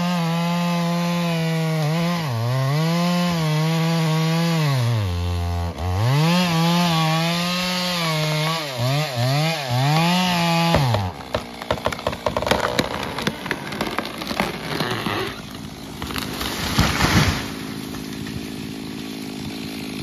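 Chainsaw running at full throttle, its revs dipping and recovering several times as it cuts through the trunk of a large tree. About eleven seconds in the saw drops away and the tree falls, snapping and crackling through branches and undergrowth, with a heavier crash about seventeen seconds in.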